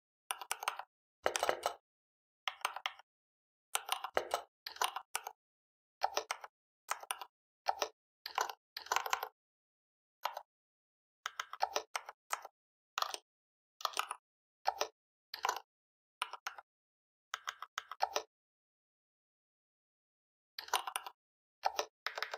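Typing on a computer keyboard: quick runs of key clicks in short bursts with silent gaps between them, and a pause of about two seconds near the end.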